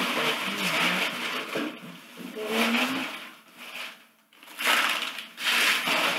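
Packing paper rustling and crinkling as hands dig through a cardboard box, in two stretches with a brief lull about four seconds in.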